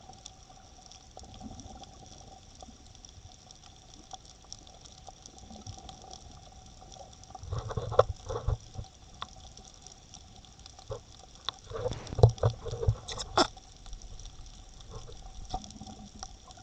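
Water sloshing and lapping around a camera's waterproof dive case at the surface, heard muffled through the housing over a faint steady whine. Clusters of louder thumps and splashes come about halfway through and again a few seconds later.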